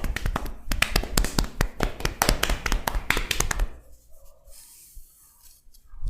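Percussive hand tapping of a head massage: a rapid, loud run of strikes for about three and a half seconds, then fainter rustling of hands, with a single low thump at the very end.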